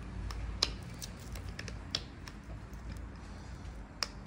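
Small screwdriver turning a screw in a metal lamp-arm hub: scattered light metallic clicks and ticks, three of them sharper and louder, over a steady low hum.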